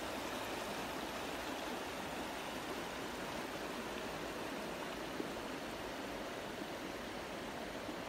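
Shallow river channel flowing over a gravel bed: a steady rush of running water.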